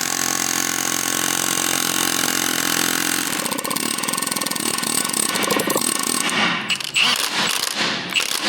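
Impact wrench hammering steadily, tightening a large seal nut into a tractor PTO divider box as it runs up tight, then a few short bursts near the end.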